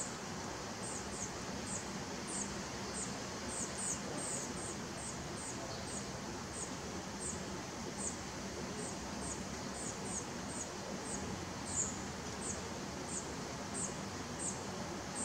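Spotted flycatchers calling: a string of short, thin, very high notes, about two a second, some in quick pairs, over a steady hiss of rain.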